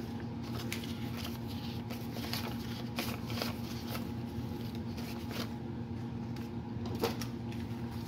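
Paper banknotes rustling and being laid down on a table as they are counted, a few sharp crinkles among them, over a steady low hum.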